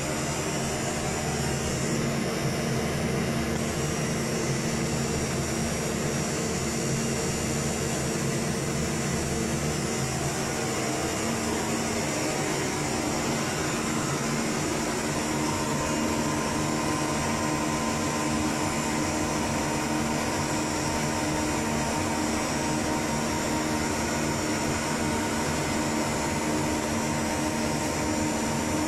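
Cooling fans of telecom power equipment whirring steadily, with a few steady humming tones; a higher tone joins about halfway through.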